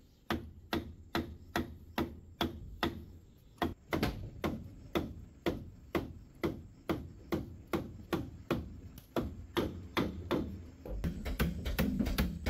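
Steady knocking on hollow bamboo, about three blows a second, from a wooden mallet driving a bamboo rail into a joint on a bamboo post. Each knock rings briefly.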